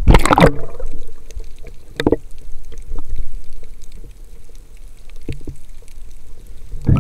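Water sounds on a spearfisher's camera: a loud rush of water in the first half second, then quieter water noise with scattered sharp clicks.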